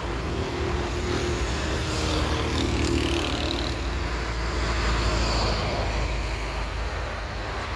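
Steady low rumble of road traffic mixed with the distant whine of a twin-engine jet airliner descending to land.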